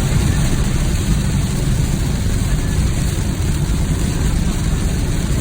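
Typhoon wind gusting against the microphone: a steady, loud low rumble that flutters constantly, with a thinner hiss above it.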